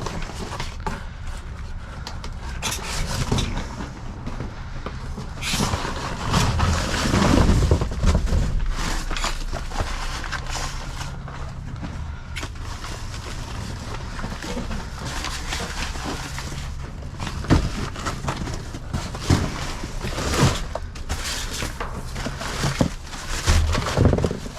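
Rummaging through a dumpster of discarded produce: plastic bags rustling and fruit being shifted, with several sharp knocks in the second half, over a low steady hum.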